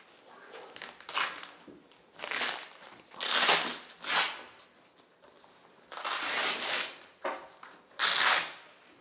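Hook-and-loop (Velcro) straps of a tendon boot being pulled open, about six or seven short ripping sounds with pauses between them.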